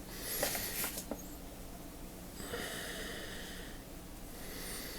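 Grime being cleaned off the worn, gunked-up mechanism of a vintage KAL 1/4-inch ratchet: a short hissing scrub near the start, then a longer, steadier one about halfway through.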